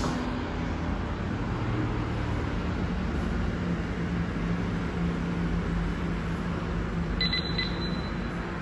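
Steady rushing background noise with a low hum throughout. About seven seconds in, a Häfele digital door lock's keypad gives a short electronic beep as it lights up.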